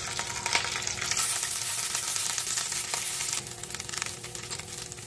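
Mustard seeds, urad dal and curry leaves sizzling and crackling in hot oil in a nonstick kadai. About three and a half seconds in, cooked rice is tipped into the pan and the sizzling dies down.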